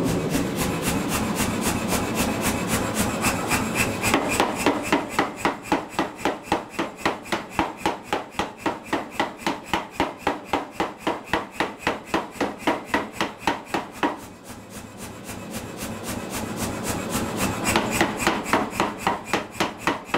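Say-Mak power hammer forging a red-hot piece of extra-heavy-wall steel tubing, striking about four blows a second. The blows start out light over the running machine and hit hard from about four seconds in, ease off briefly about fourteen seconds in, then pick up again.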